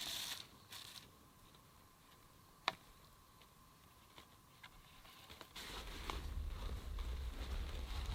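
Soft rustling and handling noises with a single sharp click about a third of the way in; just past halfway the rustling grows louder over a low rumble.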